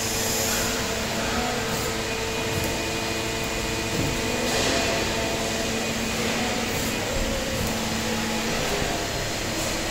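LVD CNC press brake running through its bending steps: a steady mechanical hum with a held tone that stops a little before the end.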